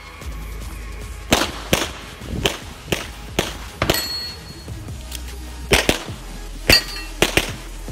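9mm CZ Shadow 2 pistol fired about ten times, mostly in quick pairs with short gaps between the pairs.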